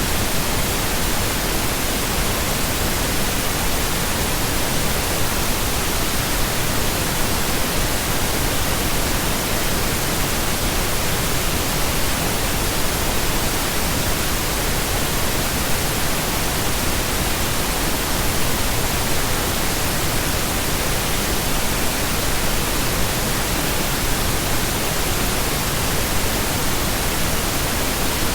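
Synthetic pink noise: a steady, even hiss spread evenly across the whole pitch range, unchanging throughout.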